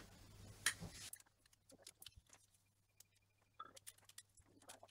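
Faint scattered clicks and light handling noises of a screwdriver working on a small hard drive's metal casing, with one sharper click just under a second in.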